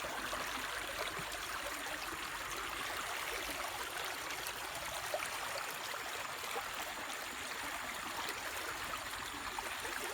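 Rain-swollen floodwater running in a stream, a steady even rush of flowing water.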